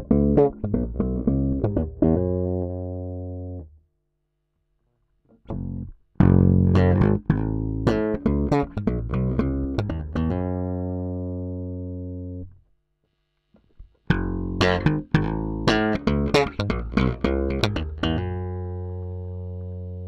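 Yamaha RBX270J four-string electric bass played fingerstyle: three short phrases of plucked notes, each ending on a held note left to ring out and fade, with gaps of about two seconds between them.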